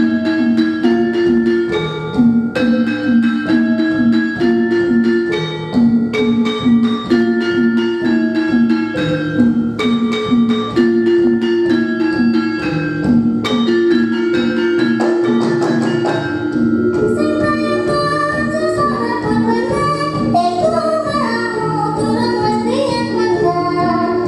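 Javanese gamelan in the pelog scale playing a steady, even pulse of struck notes on bronze metallophones and kettle gongs. In the second half a girl's voice sings over the instruments.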